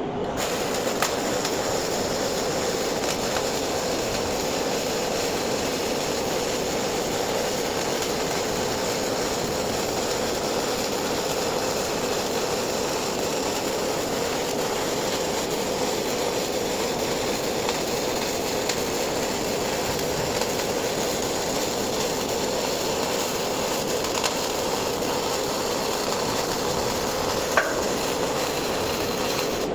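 MIG welding arc running steadily through a continuous bead, with a single sharp click near the end.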